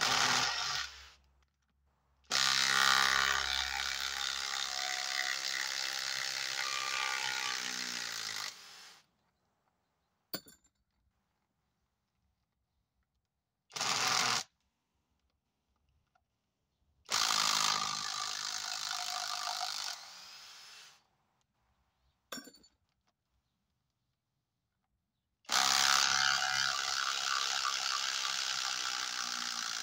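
Kobalt XTR 24-volt impact driver driving long screws into a wooden log in several runs of a few seconds each, with short taps between. Its pitch drops toward the end of the longer runs as the driver slows under load.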